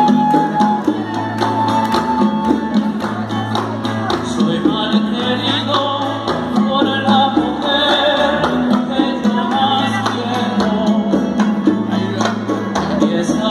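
A live Latin band playing: guitars, electric bass with a repeating bass line, and hand percussion, with a man singing through the PA.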